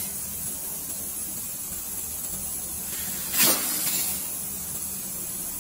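Compressed gas hissing through a refrigerator's coiled copper capillary tube as the tube is blown clean: a steady hiss, with one short, louder gust about three and a half seconds in.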